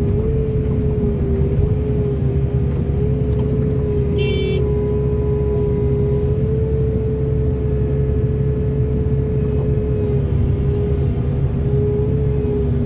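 Large excavator's diesel engine running steadily with a constant whine over a low rumble, with a short high-pitched beep about four seconds in.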